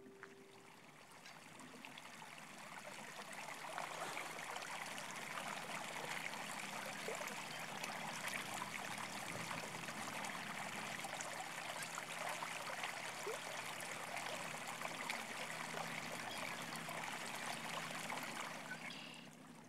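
Small shallow stream running and trickling through grass and snow, fading in over the first few seconds and fading out near the end.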